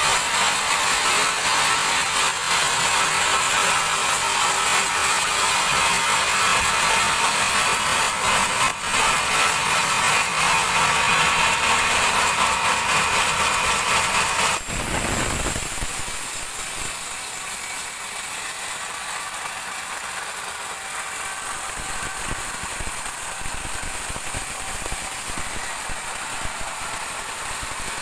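Sawmill band saw cutting a large teak log: a loud, steady cutting noise. About halfway through it drops suddenly to quieter, steady machinery running.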